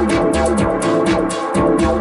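Live house music from a hardware rig: an Akai MPC1000 beat with fast, even hi-hat ticks over a synth bass line. The bass drops out for a moment about one and a half seconds in.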